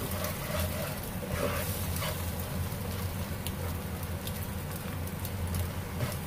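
Eggs sizzling in a nonstick wok as a spatula stirs and breaks them up, with a few light scrapes and taps of the spatula, over a steady low hum.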